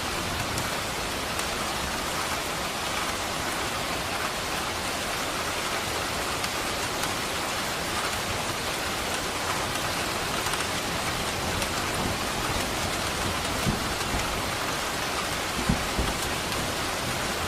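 Steady rain falling, an even hiss with no let-up, broken by a couple of brief low thuds in the second half.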